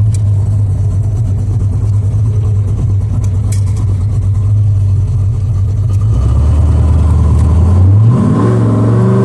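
Car engine running under way, its note dropping lower about six seconds in, then revving up steeply from about eight seconds in.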